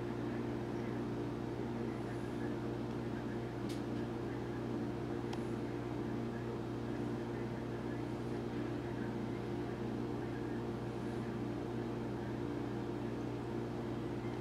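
Steady low hum of a motor or appliance, several even tones over a light hiss, with a couple of faint ticks.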